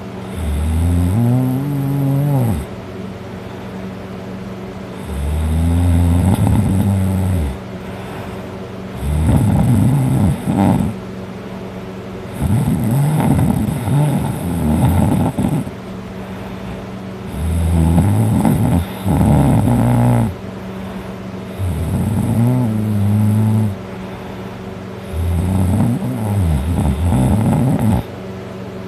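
A man snoring heavily while passed out drunk on his back: seven loud snores, one about every four seconds, each two to three seconds long. Some snores rattle and flutter, others slide up and down in pitch, and a steady low hum sits underneath.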